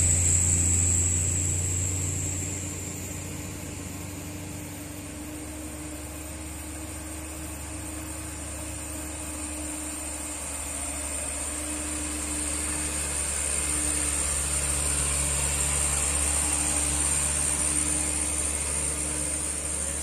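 A light cargo truck's engine pulling up a steep hill, getting louder as it approaches and passes close by. Motorcycles going by make it louder during the first couple of seconds.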